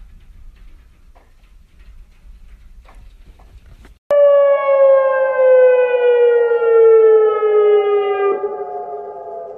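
Tsunami warning siren starting abruptly about four seconds in: a loud chord of several tones that slides slowly down in pitch. Before it there is only a faint low rumble.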